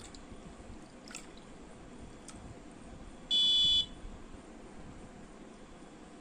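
Water pouring from a plastic jug into a plastic bucket, a steady low splashing. About three seconds in, one short high-pitched beep comes from the project's piezo buzzer, the water-level alarm.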